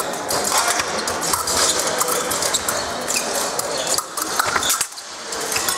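Fencers' footwork on the piste: a quick series of shoe taps and stamps with sharp clicks, easing briefly near the end.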